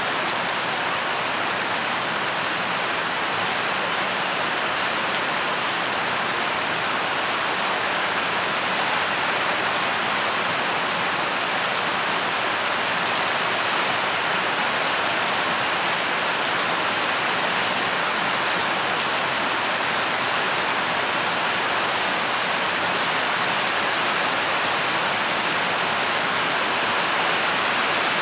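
Heavy rain falling onto a flooded road, a steady hiss of countless drops splashing into the standing floodwater.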